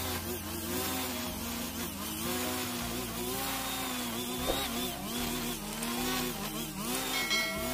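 45 cc two-stroke brush cutter running with a nylon line head, cutting through thick grass. The engine pitch sags and recovers over and over as the spinning line takes the load of the grass.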